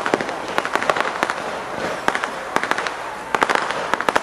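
Fireworks crackling: quick, sharp pops coming in several rapid clusters, a burst of them near the end.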